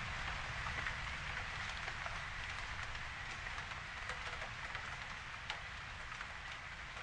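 Steady rain: a dense, even hiss with scattered single drops ticking close by, easing slightly toward the end.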